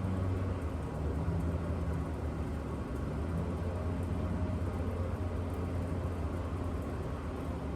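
A steady low mechanical hum with a constant droning tone.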